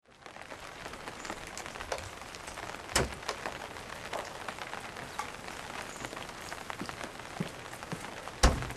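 Light rain pattering outdoors: a steady hiss dotted with many small drip ticks. There is a heavier thump about three seconds in, and near the end a footstep lands on the concrete steps.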